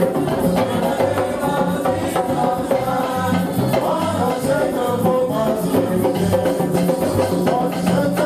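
Group singing of a church song with drums and shakers keeping a steady beat.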